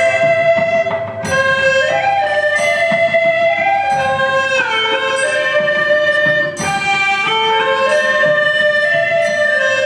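Ensemble of hulusi (Chinese gourd flutes) playing a melody together. The notes are held and move step by step, with a falling slide about four and a half seconds in.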